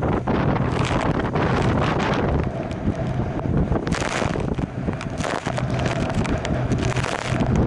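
Wind buffeting the microphone over the rush of water along the hulls of a Newick Tremolino trimaran sailing fast in gusty wind. Hissing surges of spray sweep over the boat, one about four seconds in.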